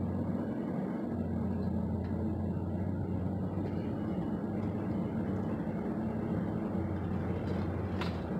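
Steady low hum of a car's engine and tyres heard from inside the cabin while driving, with a single sharp click near the end.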